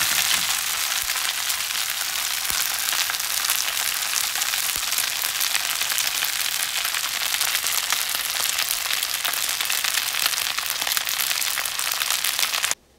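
Sauce yakisoba (noodles and cabbage) frying in a pan, a steady sizzle with fine crackling, which cuts off suddenly near the end.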